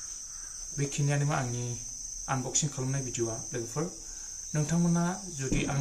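A steady high-pitched drone of insects, continuous under a man talking.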